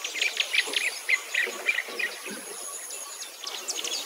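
Small birds chirping and twittering in quick, irregular short notes, with a faint steady high whine above them.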